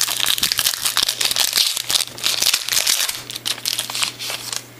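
Foil wrapper of a baseball card pack crinkling and tearing as it is opened by hand, a dense crackling that stops just before the end.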